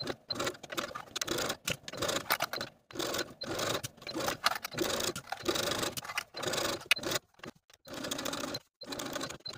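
Electric home sewing machine stitching a seam in short spurts, stopping and starting again several times.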